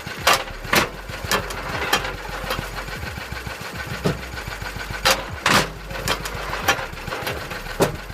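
Vintage Lister D single-cylinder stationary engine running steadily while driving a homemade wood splitter, with about a dozen sharp, irregularly spaced knocks over it.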